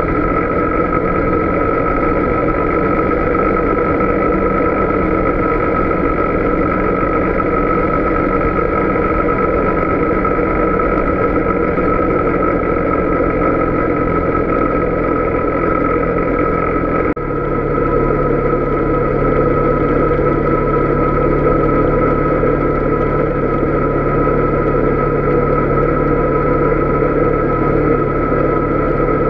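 Polaris Sportsman 570 ATV's single-cylinder engine running steadily while riding, with a high steady whine over it. The engine's tone shifts abruptly about 17 seconds in.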